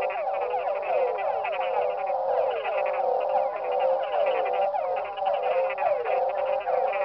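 A chorus of many frogs and toads calling at once, steady and unbroken. Short calls that slide downward overlap constantly, with a higher, rapidly pulsing trill running through them.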